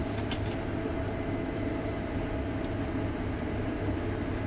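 Case IH combine running steadily while harvesting wheat: a constant low hum with a faint steady whine above it and a few light ticks early on.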